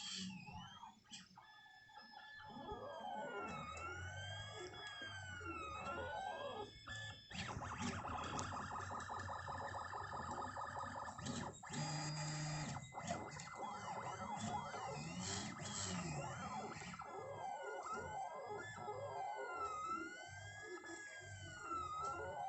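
3D printer's stepper motors whining, the pitch rising and falling in repeated arcs as the moves speed up and slow down. In between come stretches of fast, stuttering short moves, over a steady high tone.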